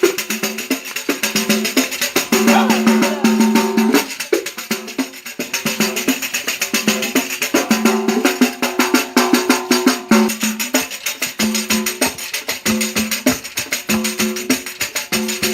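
Pandeiro played in a fast, steady rhythm, its jingles rattling on every stroke, with repeated pitched notes sounding in time.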